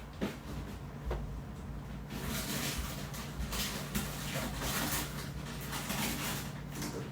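Household handling noise while ice is fetched: a couple of light knocks, then a few seconds of clattering and rustling, over a steady low hum.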